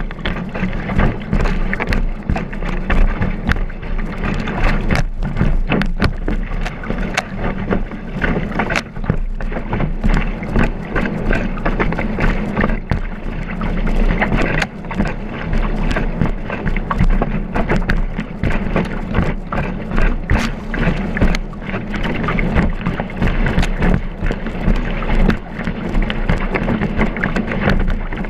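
Kiteboard planing fast over choppy water: a continuous rush of water and spray along the board, broken by many quick slaps and knocks as the board hits the chop, picked up by a camera mounted on the board's deck.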